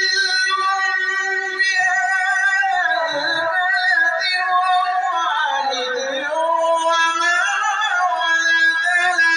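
A man reciting the Quran in the drawn-out, melodic mujawwad style through a microphone and PA loudspeakers, holding one long ornamented note. The pitch sinks lower about halfway through and rises again near the end.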